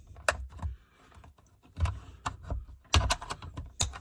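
Plastic mirror trim cover being pried and worked against its retaining clips: a string of irregular plastic clicks and knocks, the loudest about three seconds in. The clips are still holding.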